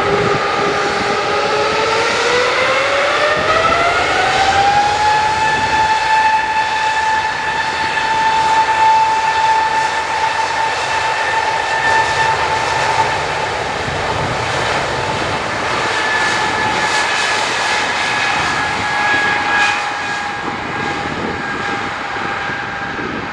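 Embraer E195 airliner's turbofan engines spooling up to takeoff thrust: a whine rises in pitch over the first few seconds, then holds as a steady high whine over the jet rush as the aircraft starts its takeoff roll.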